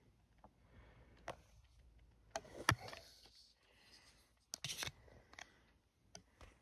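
Light handling noise: a few soft clicks and rubs as metal-framed eyeglasses and the phone are moved about on fabric, loudest about two and a half seconds in and again near five seconds.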